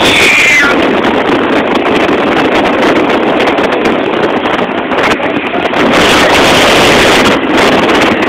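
Wind rushing over the microphone on a moving moped, with the moped's small engine running under it as a loud, steady rush. A short high tone falls in pitch right at the start.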